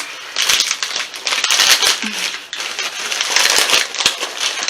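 Crunchy Flaming Hot corn snack chips being chewed close to the microphone: a dense, uneven run of crisp crackles and clicks.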